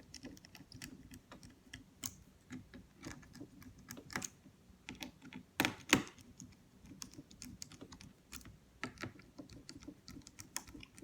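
Irregular light clicks and taps of a small screwdriver and plastic parts as the keyboard retaining screws of a Lenovo ThinkPad T560 are worked. There are two louder knocks about six seconds in.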